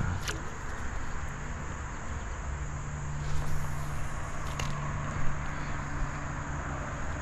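Summer insects buzzing steadily in the background. A low steady hum comes in about two and a half seconds in, and there are a couple of light clicks.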